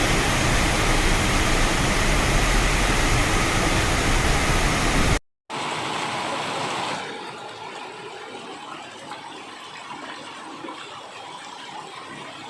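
Heavy rain pouring in a steady, loud rush. About five seconds in, the sound cuts out for a moment. The rain then goes on more quietly, and it softens again a second and a half later.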